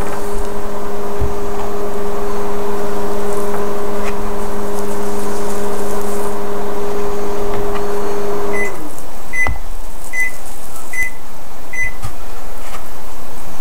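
Microwave oven running with a steady hum while it heats a bowl of chocolate chips. The hum winds down and stops about nine seconds in, and then five short beeps sound, signalling that the heating cycle has finished.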